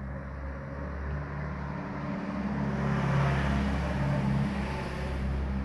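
A motor vehicle's engine passing by, growing louder to a peak about three seconds in and then easing off.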